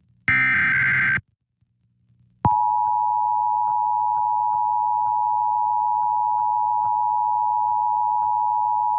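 Emergency Alert System required monthly test: the last SAME header data burst, about a second of dense digital warbling, then, after a second's pause, the steady two-tone EAS attention signal (853 and 960 Hz) begins about two and a half seconds in and holds.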